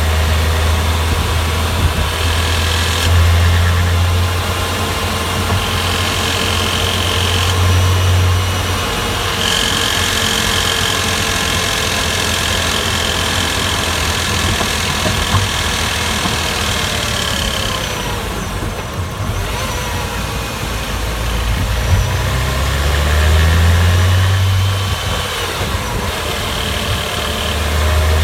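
Porsche Boxster S (986) 3.2-litre flat-six engine running, its note rising and falling.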